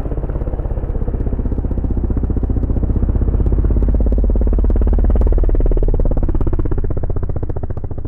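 Snow bike (a dirt bike fitted with a ski and track kit) running hard through deep powder and passing close by. The engine grows louder as it approaches, is loudest about five seconds in, then fades as it moves away.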